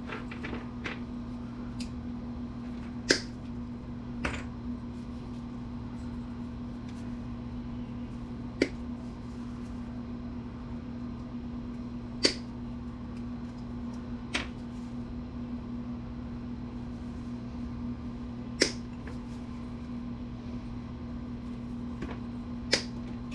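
About seven sharp, separate clicks and clacks of small scrapped computer parts, such as connectors and bits of metal, being set down or dropped onto sorted piles. They come a few seconds apart over a steady low hum.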